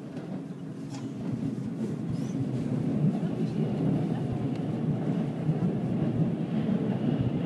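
Steady running rumble heard from inside a moving vehicle. It grows louder over the first few seconds and then holds level.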